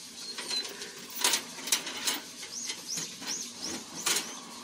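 A small bird chirping, five quick high chirps in a row, each rising then falling, about halfway through. Several sharp clicks and knocks, louder than the chirps, come before and after them.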